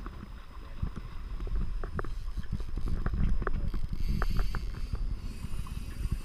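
Steady low rumble of a small fishing boat on open water, with scattered light clicks and knocks, getting louder in the middle.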